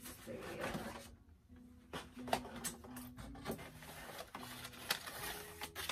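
Cardboard doll-box packaging being handled and pulled apart: rustling and crinkling with several sharp taps and clicks.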